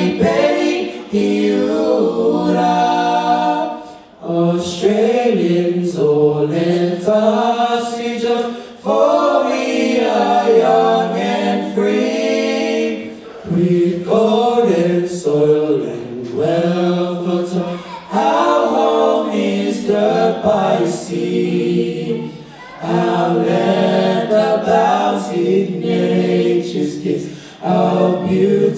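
A small mixed group of young voices, one woman and three men, singing a cappella in harmony into microphones, in sung phrases with short breaks for breath between them.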